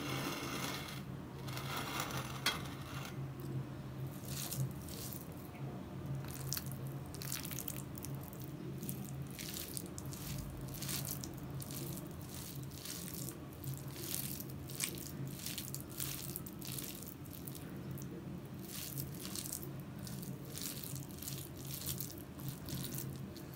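Bare fingers mixing and squishing rice with mashed brinjal and banana bhorta on a stainless steel plate: wet squelching with frequent sharp clicks as fingertips hit the metal, over a steady low hum.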